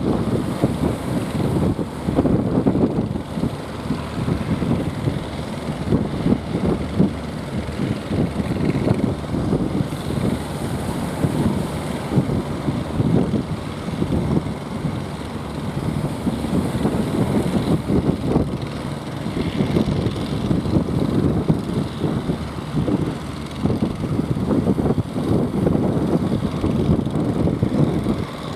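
Boat engine running steadily, a rough low rumble, with wind buffeting the microphone.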